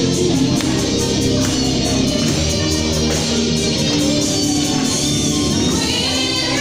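Live band music with a steady beat: a song played by a band with guitar.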